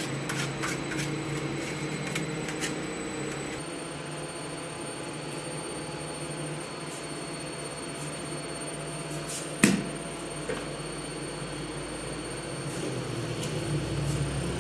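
Steady low hum of bakery machinery, with scraping and light knocks as dough is worked out of a steel mixer bowl by hand in the first few seconds. A single sharp thud, the loudest sound, comes about two-thirds of the way through, as the heavy dough mass lands in a steel bowl.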